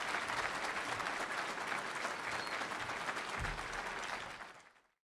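Audience applauding at the close of a speech: dense, steady clapping that fades out near the end.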